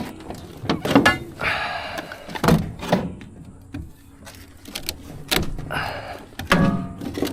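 Scrap metal being handled and dropped: a run of clanks and knocks, some with a short metallic ring.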